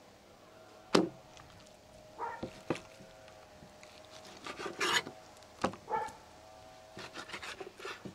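Knife cutting raw lamb offal on a wooden cutting board: sharp knocks of the blade and meat against the board, the loudest about a second in and a quick run of them near the end, with rasping slicing and rubbing in between.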